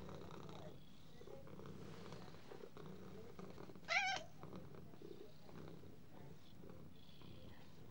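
A domestic cat purring steadily and faintly, with a brief warbling high-pitched tone about four seconds in.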